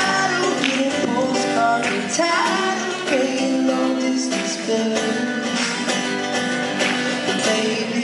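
A man singing a slow song while strumming an acoustic guitar, performed live.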